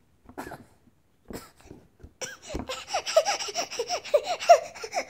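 Baby laughing: a few soft sounds, then from about two seconds in a quick run of short giggles, about four a second.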